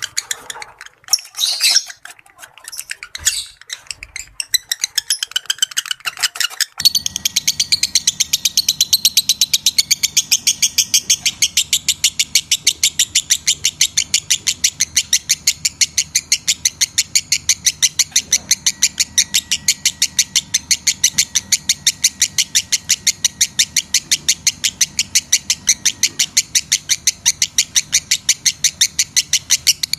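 Lovebirds chirping: scattered, irregular chirps, then about seven seconds in a fast, even run of sharp high chirps, several a second, over a faint low hum. It is a lovebird call recording used to stimulate breeding.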